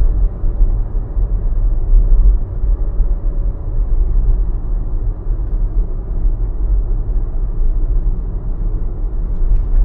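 Steady low rumble of road and tyre noise inside a Tesla's cabin while it drives.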